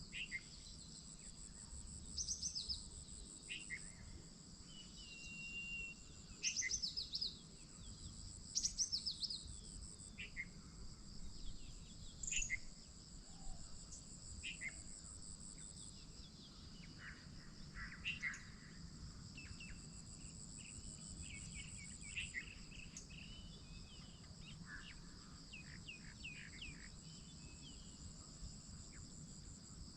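Steady high-pitched insect chorus, with several birds chirping and singing in short phrases over it.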